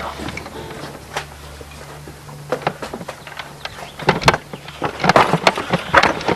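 A low steady hum, then a run of sharp clicks and knocks that comes thicker and louder from about two-thirds of the way in.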